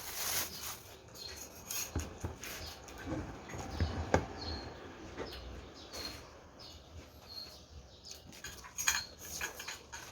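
Cutlery clinking and knocking against a dish during eating, in scattered short clicks. Brief high chirps, like a small bird's, come several times in the background.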